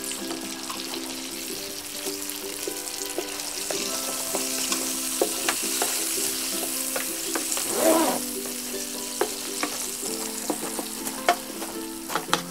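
Large prawns sizzling in hot olive oil with garlic in an electric pan, a steady hiss. A wooden spatula clicks and scrapes against the pan as they are turned over.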